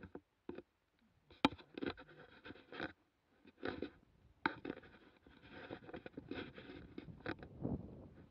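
Inline skate wheels on asphalt as the skater pushes off and gathers speed: irregular scraping strokes about every half second to second from each push, over a rolling noise that builds towards the end.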